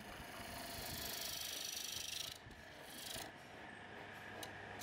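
Chisel cutting a spinning wooden table-leg spindle on a wood lathe: a continuous cut for about two seconds that stops suddenly as the tool comes off, then a short second cut a little later.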